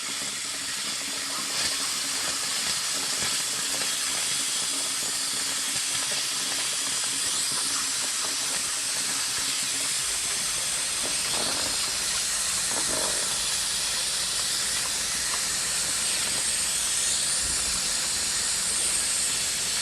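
Compressed air hissing steadily as it is blown into the top of a vinegar jug, pressurizing it to force vinegar through a hose into a water heater's drain valve.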